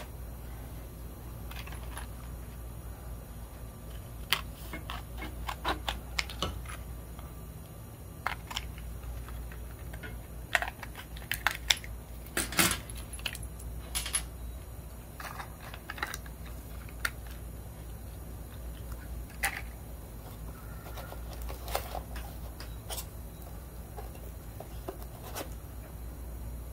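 Hands opening a cardboard-and-plastic blister pack and handling a small metal cutoff-wheel mandrel and thin cutoff wheels on a steel workbench: scattered clicks, taps and light rattles, over a steady low hum.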